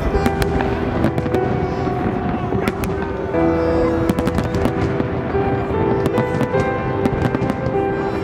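Fireworks bursting: a string of sharp bangs and crackles, irregularly spaced, over music with long held notes.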